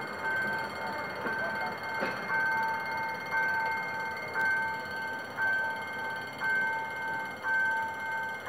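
Level-crossing warning alarm sounding: a ringing electronic tone repeating about once a second, warning that a train is crossing.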